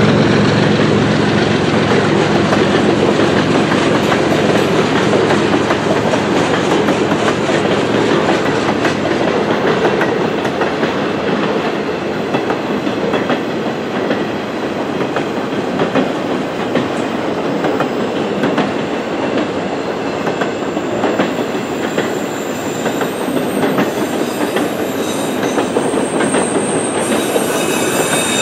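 Freight cars of a long CN train rolling past: a steady rumble of steel wheels on rail with frequent clacks as the wheels cross rail joints. In the last quarter a thin, high wheel squeal comes in over it.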